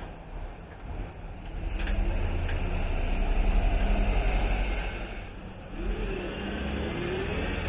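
A low vehicle rumble that swells about two seconds in, fades near five seconds, then builds again, like a vehicle passing by.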